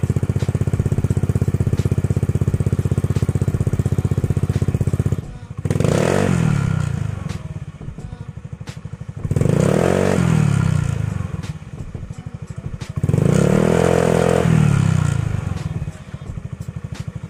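Motor scooter engine idling through an aftermarket slip-on muffler freshly packed with glasswool, revved by hand at the throttle three times, each rev rising and falling back to a steady idle.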